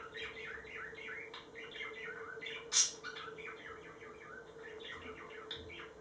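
Budgerigars warbling: a rapid, unbroken chatter of short chirps, with one louder, sharper chirp about three seconds in. It is the soft warble budgies make when courting a mate.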